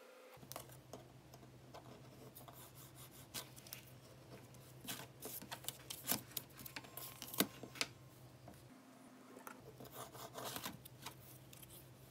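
Paper being handled and folded on a cutting mat, with soft rustling and scattered small clicks and taps of a plastic ruler and a metal tool against the paper and mat; the sharpest clicks come in the middle.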